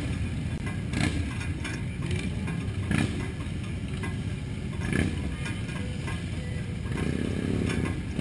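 Many motorcycle engines rumbling as a large group rides past, with a few brief sharper sounds about every two seconds and the rumble swelling near the end.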